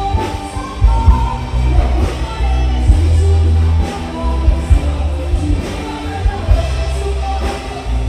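Loud rock music with a singer over heavy bass and regular drum hits, most likely a live band playing through the market's loudspeakers.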